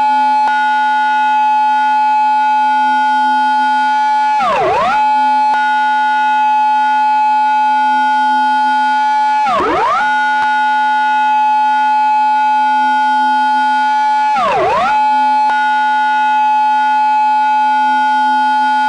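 Japanese police car siren in its intersection-entry pattern: a held high electronic wail that drops sharply and swoops straight back up, three times about five seconds apart.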